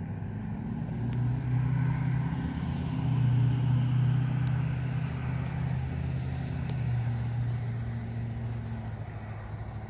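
A motor vehicle's engine hum that swells from about a second in, peaks mid-way and fades toward the end, like a vehicle driving past.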